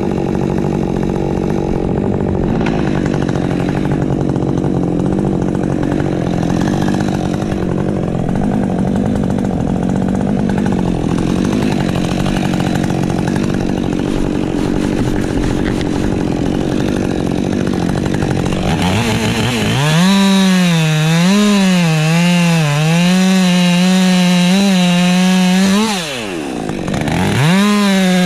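Ported Husqvarna 550 XP Mk II chainsaw with a 20-inch bar, held at full throttle while cutting through wood for most of the time. Near the end it runs free with the revs wavering, drops briefly and revs up again.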